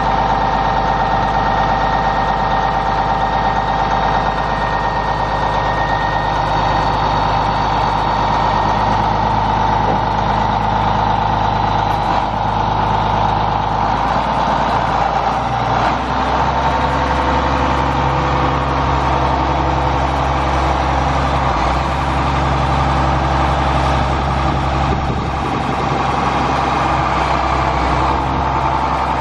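A Case 2394 tractor's Cummins 504BDT six-cylinder turbo diesel engine running steadily, with a steady high whine over the engine note. The low engine note changes about halfway through.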